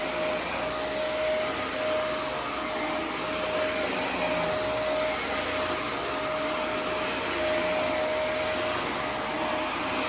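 Dyson DC24 upright vacuum cleaner running steadily, with a steady tone riding over the motor and airflow noise. The owner takes that tone for air passing through somewhere, perhaps a slight blockage in an air path, rather than worn bearings.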